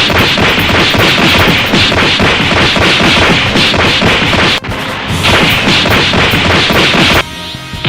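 Dense barrage of anime fight impact sound effects: punches and blows landing in quick succession, loud and continuous, with a short break a little past halfway. Near the end the hits give way to a quieter, steady tone.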